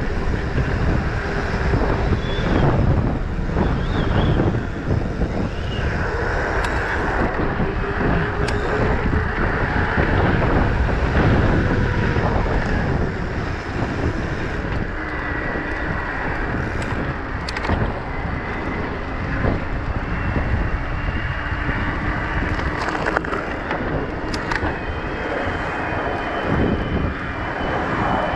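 Wind buffeting a handlebar-mounted action camera's microphone on a moving electric mountain bike, with the rumble of tyres rolling on the path. Faint steady whining tones come and go over the noise.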